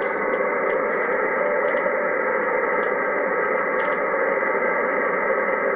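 HF radio receiver's steady static hiss, with weak Morse code signals buried in the noise.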